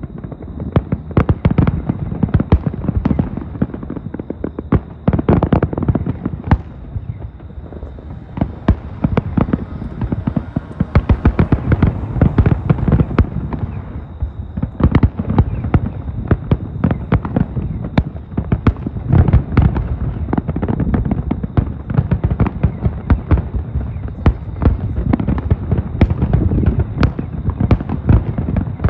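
Aerial fireworks display: many shells bursting in quick succession, a dense, nonstop barrage of sharp bangs and booms several times a second.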